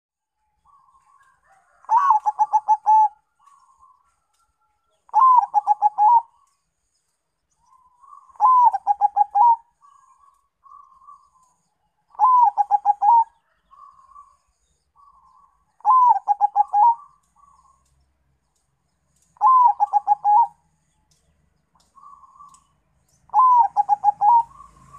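Zebra dove (perkutut), a Bangkok–local crossbreed, cooing its song: seven phrases about three and a half seconds apart, each a quick rolling run of notes lasting about a second, with softer short coos between them.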